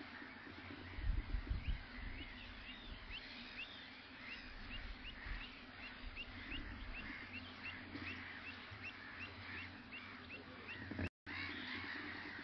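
Wetland birds calling over one another, with a run of short, rising calls repeated about two or three times a second in the middle. A few low rumbles on the microphone about a second in are the loudest sound, and the sound cuts out briefly near the end.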